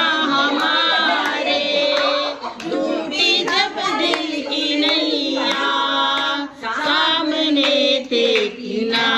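Women singing a Hindi song together, voices carrying a wavering melody with no break, with some hand clapping.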